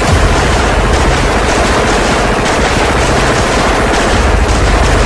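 Sustained gunfire in a firefight: rapid automatic bursts and single shots overlapping with no break.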